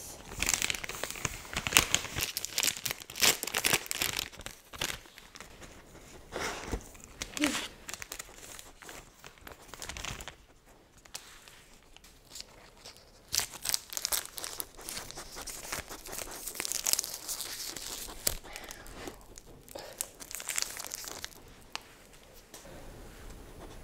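Plastic wrapper of a cheese string crinkling and tearing as it is handled and peeled open close to the microphone, in irregular crackly bursts with a quieter lull about halfway through.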